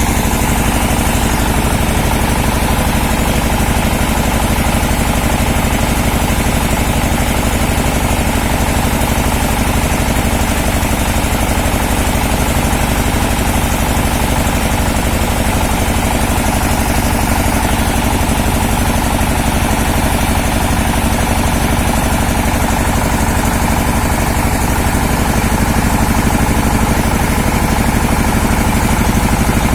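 Engine of an industrial well-drilling rig running steadily, with a fast, even firing beat and no change in speed.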